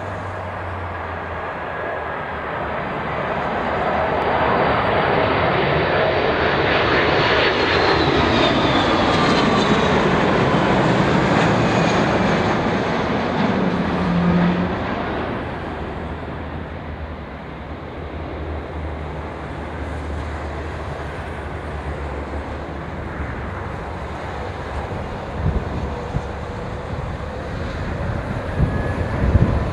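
Airbus A330 jet airliner passing overhead on its landing approach. Its engine noise swells to a peak, with a whine that falls in pitch as it goes by, then settles to a steadier, lower roar. A few low thumps come near the end.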